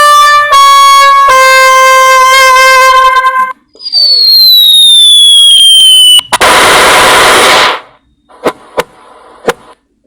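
A run of comedy sound effects played back one after another: a brass-like tune stepping down in pitch over four notes, the last one held, typical of a 'sad trombone' fail sting. Then a long falling whistle, a loud burst of noise like a blast, and a few sharp clicks near the end.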